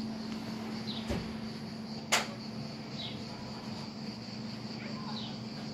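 Outdoor ambience with a steady high insect buzz and a low steady hum. Short falling bird chirps come every second or so, and one sharp click sounds about two seconds in.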